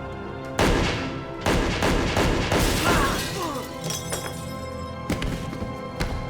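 Two sudden loud crashes about a second apart, with shattering glass that fades over the next couple of seconds, laid over steady background film music. The crashes are re-created foley.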